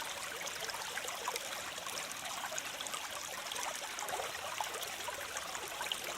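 Waterfall water running steadily, splashing and trickling, light and bright with little low rumble.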